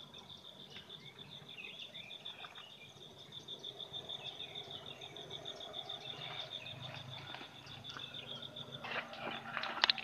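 Faint, steady, high-pitched insect trill with a rapid pulse, over light rustling of grass. About a second before the end, louder crackling rustles and clicks of leaves and stems being pushed through take over.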